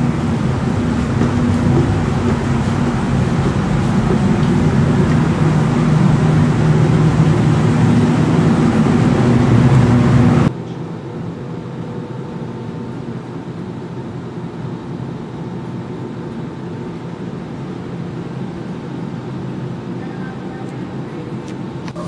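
A loud, steady rumbling noise with a low hum that cuts off abruptly about ten seconds in. A quieter, steady background noise follows.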